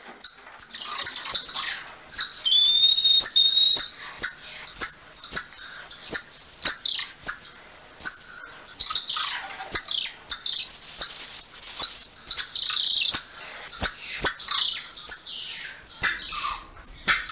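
Golden lion tamarin calling: a busy run of high-pitched chirps and sharp clicks, with a long steady whistle about two seconds in and another around ten and a half seconds.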